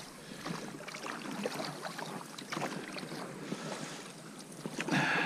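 Rowing a boat with oars on a lake: the oar blade dips and pulls through the water with irregular small splashes and drips.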